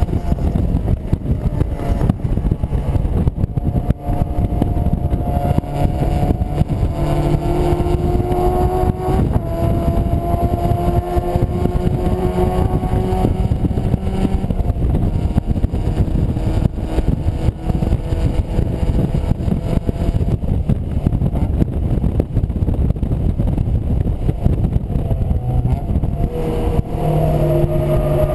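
Mazda MX-5's four-cylinder engine pulling hard on track, its pitch climbing in long runs through the gears with an upshift about nine seconds in and a drop in pitch near the end as it comes off the throttle for a corner. Heard from inside the open-top cabin, with heavy wind buffeting on the microphone.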